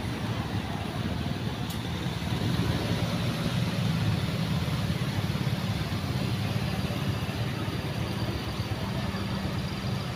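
Street traffic: car and motor scooter engines running in slow, queued traffic, a steady low hum over general street noise.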